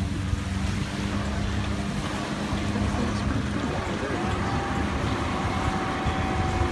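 Longtail boat engine running steadily over water. About four seconds in, its note shifts and a higher steady tone joins in.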